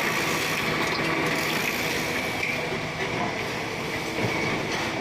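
Electric hydraulic concrete mixer pump running steadily under load, a dense mechanical noise with a steady high whine over it.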